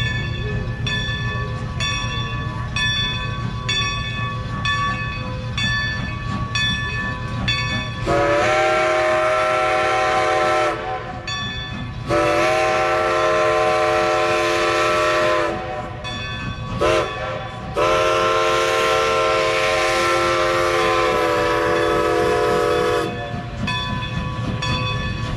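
Passing train: a bell rings in steady strokes over a low rumble, then the locomotive whistle sounds four times, long, long, short, long, the grade-crossing signal.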